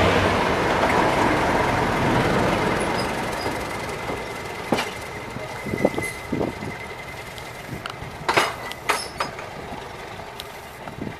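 Diesel train running past and moving away, its noise fading over the first few seconds, followed by a scatter of sharp clicks and knocks.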